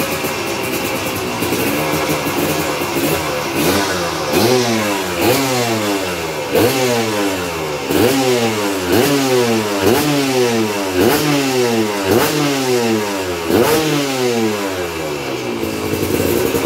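Kawasaki KDX 200 single-cylinder two-stroke engine running through its newly built racing expansion-chamber exhaust. It is blipped over and over, about a dozen quick throttle blips roughly one every 0.7 s, each rev rising sharply and falling away, then it settles back to idle near the end: a sound check of the new exhaust.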